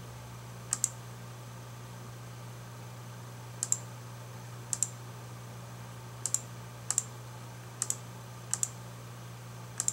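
Computer mouse button clicking: about eight short, sharp double clicks at irregular intervals, over a steady low hum.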